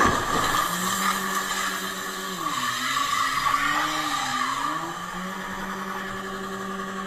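Van engine held at high revs while a drive wheel spins against the road surface, smoking. The engine pitch sags about halfway through and then climbs back to a steady high note, over a hissing squeal from the tyre.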